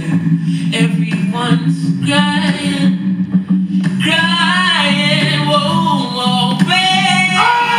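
Music: a solo voice singing long, sliding notes over a steady low drone.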